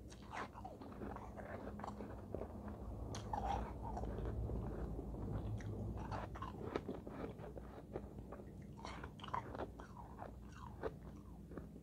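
Close-up biting and chewing of crumbly, snow-like frozen ice: an irregular run of crisp crunches and crackles as the ice is bitten off and broken between the teeth.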